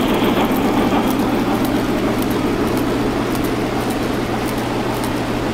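Model passenger train running along its track with a steady rumble of wheels on rail, light clicking, and a constant low hum underneath.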